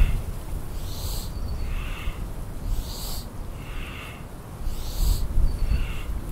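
A person breathing audibly and rhythmically in and out during qigong breath harmonizations, about one full breath every two seconds. Each cycle alternates a higher airy rush with a lower, slightly falling one, over a low rumble.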